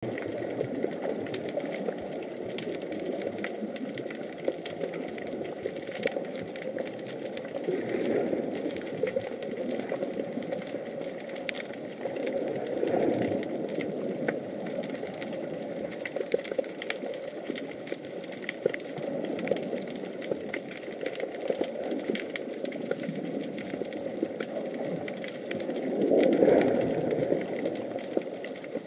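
Underwater sound picked up by an action camera under the sea: a steady muffled rumble with frequent small clicks and crackles. It swells louder a few times, most strongly near the end.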